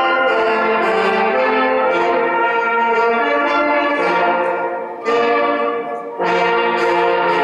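Youth brass band playing sustained chords, with fresh chords sounding about five and six seconds in.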